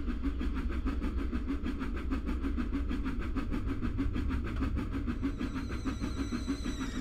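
Steam locomotive running with its train: a rapid, even beat of exhaust chuffs over a low rumble. Thin high steady tones come in near the end.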